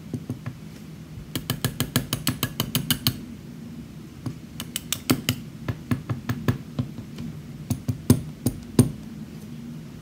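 Small metal lock parts and tools clicking and tapping as a pin-tumbler lock is taken apart by hand. A quick run of light clicks about a second in, then scattered clicks, with a few sharper single clicks near the end.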